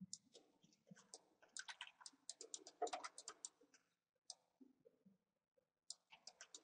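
Faint clicking of a computer mouse and keyboard keys, with a quick run of clicks in the middle and scattered single clicks around it.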